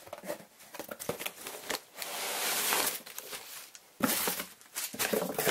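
Crumpled newspaper packing rustling and crinkling as it is pulled out of a box by hand. There are irregular crackles, a denser rustle for about a second near the middle, and a sharp rustle about four seconds in.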